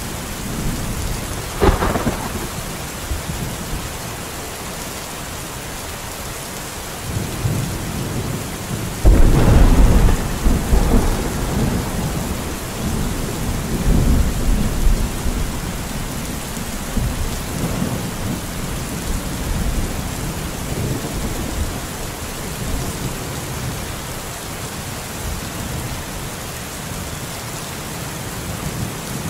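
Steady rain falling, with thunder: a sharp crack about two seconds in, then a long, low rumble that starts about nine seconds in and dies away over several seconds.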